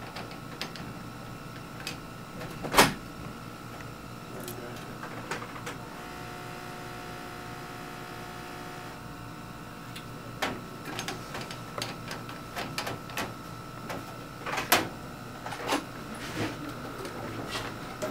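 Scattered clicks and taps of plastic and glass labware being handled under a steady hum, with one sharp knock about three seconds in. For about three seconds near the middle, a small motor hum with several steady tones: an electric pipette aid drawing up media.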